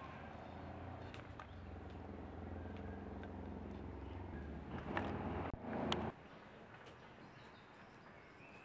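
A motor running with a steady hum, louder and rougher around five seconds in, then cutting off abruptly about six seconds in.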